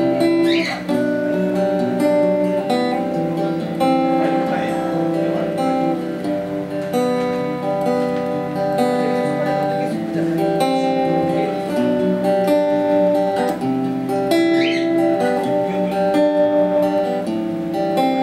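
Acoustic-electric guitar playing an instrumental passage, a melody of held notes changing every second or so, with no singing.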